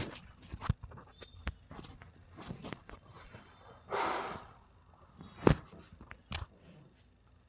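Handling sounds of a chiropractic adjustment: scattered sharp clicks and knocks from hands, body and treatment table, the loudest crack about five and a half seconds in. A short rush of breathy noise comes about four seconds in.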